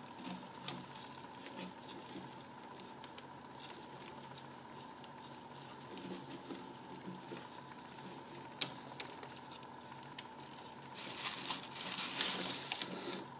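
Gloved hands working a potting-soil root ball: soft crumbling, rustling and scattered light taps, with a louder stretch of rustling near the end. A faint steady hum runs underneath.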